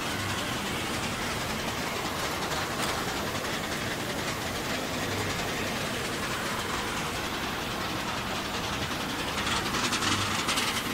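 Steady background noise of a room with machines running, growing louder with clicking and rustling near the end.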